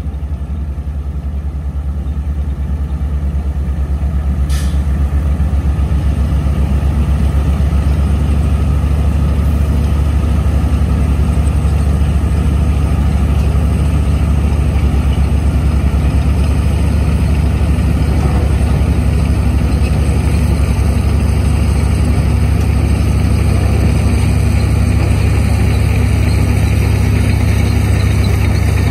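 Heavy diesel engine of a Dongfeng dump truck running steadily under load while the hydraulic hoist tips the loaded bed. The engine gets louder over the first few seconds and then holds, with a brief hiss about four and a half seconds in.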